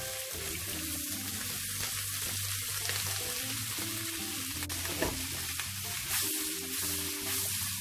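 Salted pork and mangetout sizzling in a hot non-stick wok while a spatula stirs and turns them, with a few sharp clicks of the spatula against the pan.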